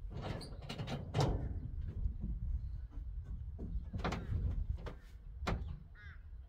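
A few sharp knocks and clatters, the loudest about a second in, over a steady low rumble. A crow caws faintly near the end.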